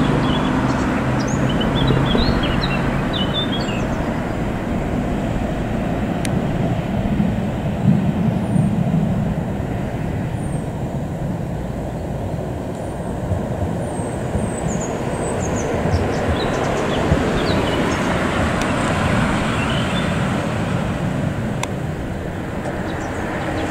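Steady rumble of a historic tram, with small birds chirping high over it throughout.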